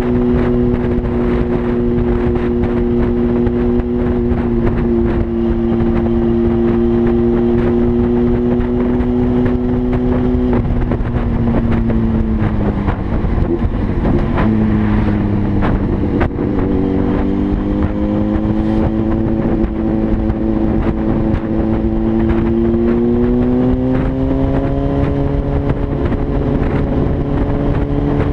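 An engine running steadily under way, its pitch dropping about ten seconds in and climbing again after about twenty seconds.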